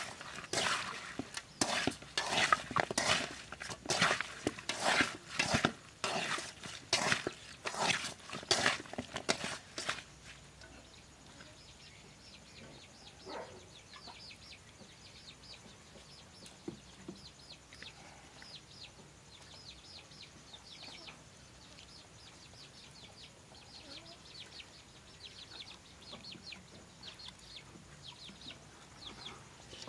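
Wet slapping and scraping knocks as hands mix whole eels with seasoning in an aluminium bowl, about one or two a second, stopping about ten seconds in. After that it is quiet, with chickens faintly and rapidly cheeping throughout.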